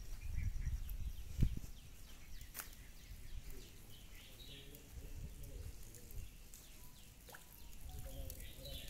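Faint outdoor background with a low rumble and a few short bird chirps, one near the start, one around the middle and one near the end.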